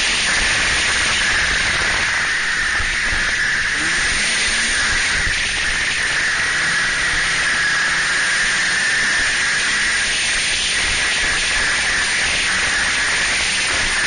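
Snowmobile running at speed over snow, heard from the rider's seat as a loud, steady rush of wind and engine noise with a steady high whine running through it.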